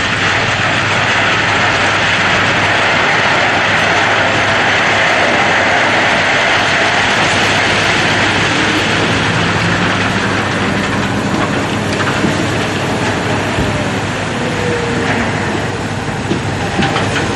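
Radio-controlled MAN TGS dump truck tipping its load: the tipper mechanism runs steadily as the bed lifts and sand slides out, changing pitch near the end as the bed comes back down.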